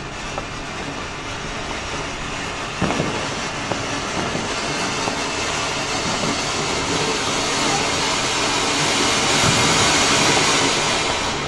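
Colour koti ground fountain firework spraying a tall shower of sparks: a steady rushing hiss with scattered crackles, a few sharp ones about three seconds in, growing louder toward the end.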